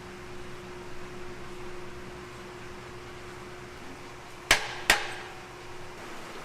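Two sharp knocks about half a second apart, a little over four seconds in, over a steady machine hum.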